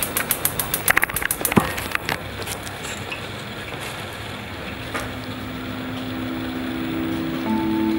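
A quick run of sharp clicks for about the first two seconds, then steady background noise. From about six seconds in, soft held music notes fade in and build toward the end.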